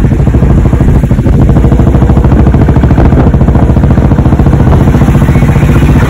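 Motor vehicle engine running steadily and loud close by, a rapid even beat over a deep hum.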